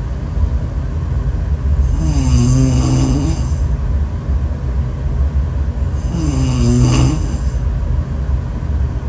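Two long, loud snores, one starting about two seconds in and one about six seconds in, each lasting about a second and a half with a wavering pitch and a hissing edge, over a steady low rumble.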